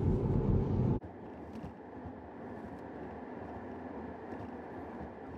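Road and tyre noise inside the cabin of a Tesla electric car driving at highway speed. It is loud for about the first second, then drops suddenly to a much quieter steady hum and hiss.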